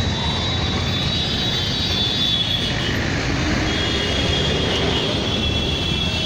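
Steady rumble of road traffic, with a faint high whine that comes and goes above it.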